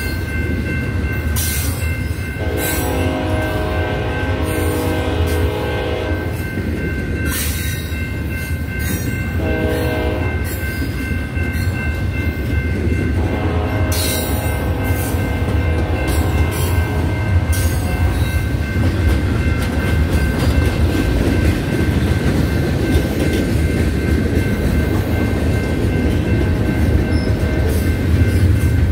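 Freight train cars, double-stack container well cars and autoracks, rolling past at speed: a steady heavy rumble with wheel clatter, sharp metallic clanks and a steady high ringing from the wheels on the rail. A train horn sounds on and off through the first half.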